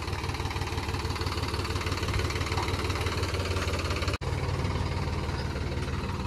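Mahindra tractor's diesel engine running steadily at low revs as it pulls a trailer loaded with manure. The sound cuts out for an instant about four seconds in.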